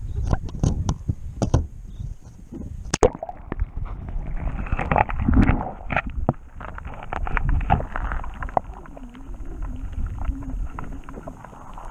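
Camera knocking and handled above the water, then a sharp splash about three seconds in as it goes under, followed by muffled underwater gurgling and knocking as it moves through the water.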